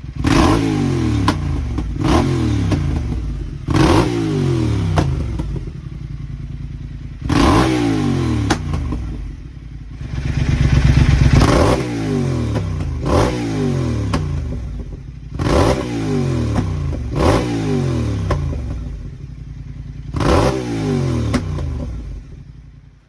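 Triumph Thruxton TFC's 1200 cc parallel-twin engine revved in about nine sharp throttle blips through de-baffled Vance and Hines silencers and an x-pipe. The revs fall back after each blip, with one longer rev around the middle. Crackles and pops on the overrun come from the open exhaust, which is spitting flames. The engine note is loud and dies away at the very end.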